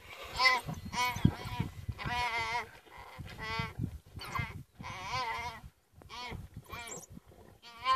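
A young impala bleating in distress while African wild dogs tear at it: repeated wavering bleats, about one a second with short gaps.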